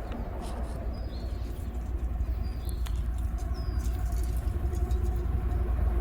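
Low rumble of an approaching BNSF manifest freight train's diesel locomotives, slowly growing louder, with a faint steady engine tone coming in about halfway. Birds chirp a few times over it.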